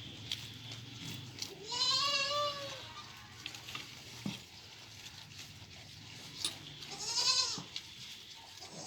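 Goats bleating: two loud quavering bleats, one about two seconds in and another near the end, with faint clicks and knocks between them.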